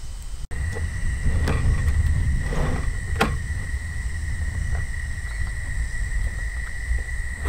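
A few sharp plastic clicks and knocks as a portable gas stove is handled in its opened hard plastic carry case, over a steady low wind rumble on the microphone and a thin steady high whine.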